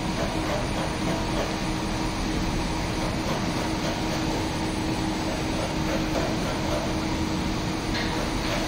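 Steady drone of a ship's machinery and ventilation, with a constant low hum.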